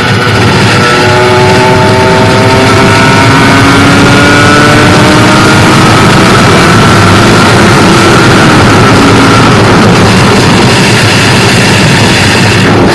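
Kawasaki Ninja RR's two-stroke single-cylinder engine running hard at high speed, its pitch climbing slowly as it pulls in a high gear, under loud wind rush on the microphone. Near the end the engine note fades into the wind noise.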